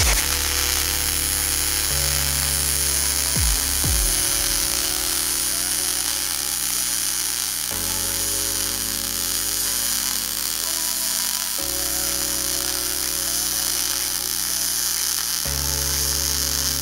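MIG welding arc crackling and sizzling steadily, the 'frying bacon' sound of wire-feed welding on steel, over background music of sustained chords that change every few seconds.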